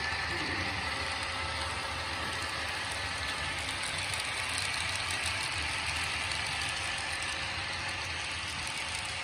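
Model freight train rolling past close by: a steady rush of many small wheels running on the rails, with faint fine clicking.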